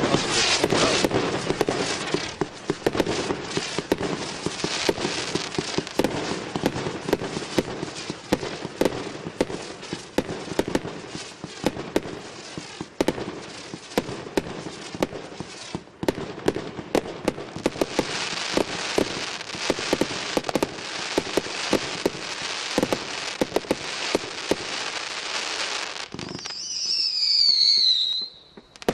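A 1.2-inch, 106-shot fireworks cake firing in rapid succession: a dense stream of sharp shots and bursts with crackle. Near the end the shots stop and a high whistle falls in pitch for about two seconds.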